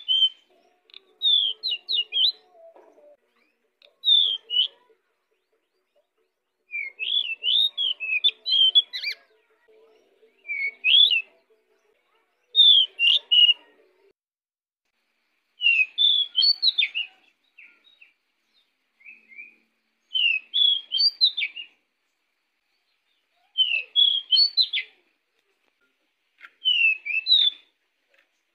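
Pied bushchat (decu) singing vigorously: about ten short, fast, warbled phrases, each a second or so long, with pauses of a second or two between them.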